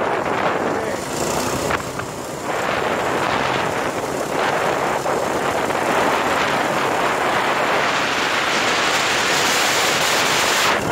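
A go-kart's small gasoline engine running as the kart drives along, mixed with a steady rushing of wind and road noise on the microphone.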